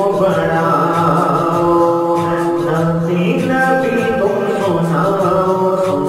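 Unaccompanied devotional singing in the style of an Urdu naat: long held, wavering vocal notes over a steady low vocal drone.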